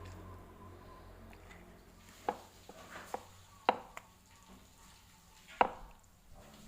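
Kitchen knocks and clacks: a handful of sharp, irregularly spaced taps from handling the wader fish in the seasoning, the loudest near the middle and end.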